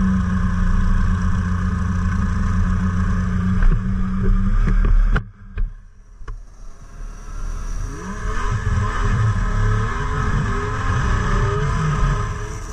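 Snowmobile engines running at speed, a steady loud engine note that cuts off suddenly about five seconds in, then an engine revving up again, its pitch rising and falling as it accelerates.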